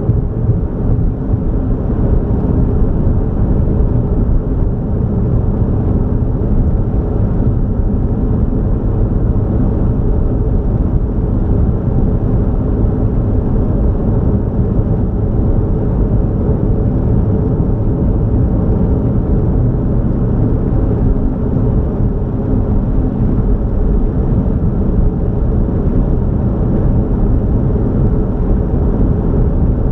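A vehicle driving at a steady road speed: a constant low rumble of road and engine noise with no change in pace.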